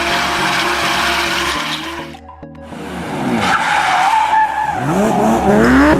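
Electric motor and gears of a radio-controlled off-road truck whining, rising in pitch several times as it speeds up in the second half, with tyre and ground noise; electronic dance music plays underneath.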